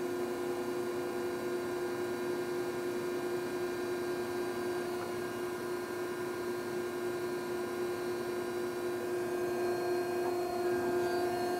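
Okamoto ACC-1224EXB surface grinder running with its hydraulic pump and grinding-wheel spindle on, a steady even hum while the axes are jogged. A second, higher steady tone joins about ten seconds in.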